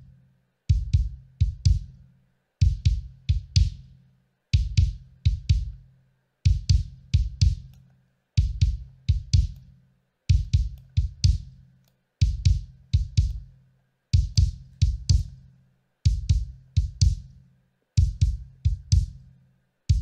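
Kick drum track playing alone on a loop: a pattern of three or four hits that repeats about every two seconds, each hit a deep thump with a sharp beater click on top. It runs through a Pultec-style tube EQ plugin whose upper-mid boost is being switched from 3 kHz up to 8 kHz to bring out the smack of the beater on the drum head.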